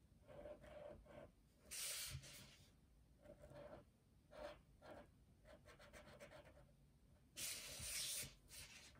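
Felt-tip marker scratching on paper in short repeated colouring strokes. Two louder, longer paper-rubbing sweeps come about two seconds in and near the end, as the sheet is slid and turned on the table.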